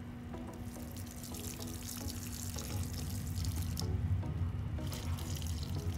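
Coffee poured from a glass carafe onto the soil of potted plants, its splashing hiss coming and going, with a short break about four seconds in. Background music plays underneath.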